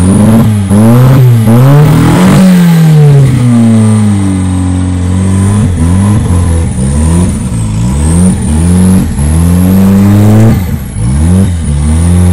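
Turbocharged, carburetted Ford Fiesta engine revving up and down repeatedly under hard driving. A high turbo whistle rises and falls with the revs.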